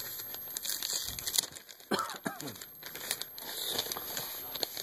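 Plastic bag crinkling and rustling as a new laptop LCD screen panel is slid out of it, with a short falling squeal about two seconds in.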